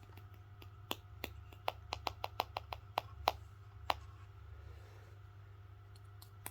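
A quick, irregular run of light clicks and taps from handling a home theater speaker's parts, densest for about three seconds, then a few scattered clicks near the end, over a steady low hum.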